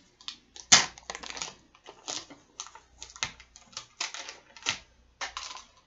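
Ice cream tub being opened and handled: an uneven run of sharp clicks, crackles and rustles from the lid and packaging.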